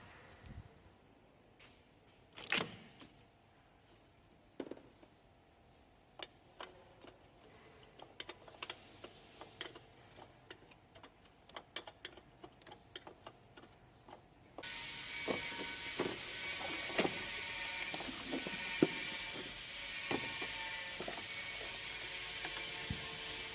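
Scattered clicks and clanks of tools and metal parts being handled during car repair work. About two-thirds of the way in, a steady mechanical hum starts suddenly, with more knocks over it.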